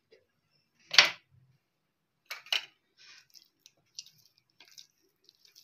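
Small kitchen clatter: a sharp knock about a second in and two quicker clicks around two and a half seconds, then faint wet sounds of hands rubbing black pepper into raw chicken breast fillets on a plate.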